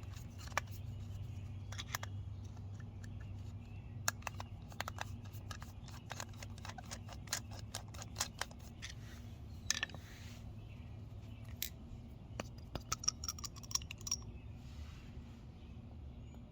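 Small metal clicks, ticks and scrapes of a flat screwdriver working the main jet out of a push-mower carburetor and handling the small parts, irregular and scattered over a steady low hum.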